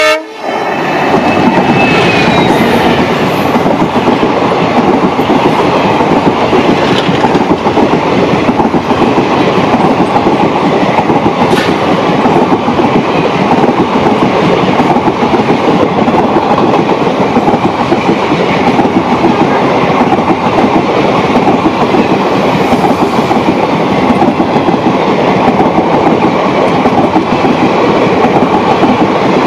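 Express train passing close by at speed: a loud, steady rush of steel wheels on the rails, with clickety-clack as the coaches cross the rail joints.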